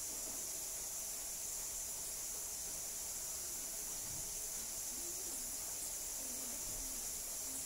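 Steady high-pitched hiss, with faint indistinct voices in the background.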